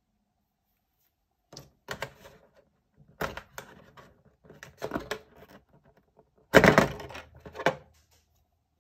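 Handling noise from unpacking accessories: a USB cable set down and a plastic wall charger pulled from its slot in a cardboard box insert. It comes as a string of light clicks, knocks and scrapes starting about a second and a half in, loudest about two-thirds of the way through.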